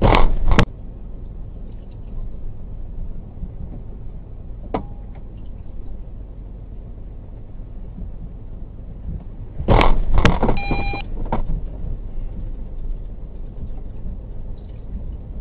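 A truck drifting in tsunami floodwater, heard from its cab: a steady low rumble, a loud bang right at the start, and a longer clattering crash about ten seconds in as floating debris and another vehicle strike it.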